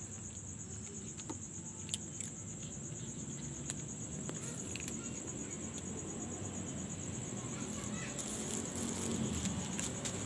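Night insects trilling steadily at a high pitch, with a few faint scattered clicks of cats crunching dry kibble.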